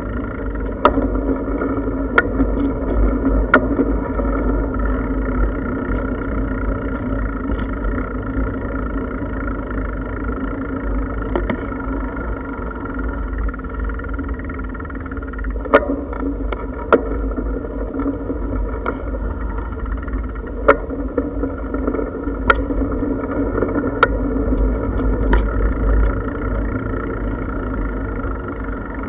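Bicycle rolling along a paved path, heard from a camera mounted on the bike: a steady tyre hum over a low wind rumble, with a sharp knock every few seconds.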